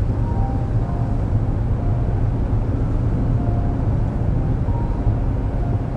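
Steady low rumble of a large car ferry under way, its engines and hull heard from the deck as it moves through the harbour, with a few faint short tones over it now and then.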